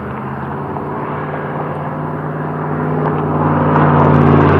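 Road traffic: a motor vehicle's engine hum and tyre noise grow steadily louder, peaking near the end as it passes close by.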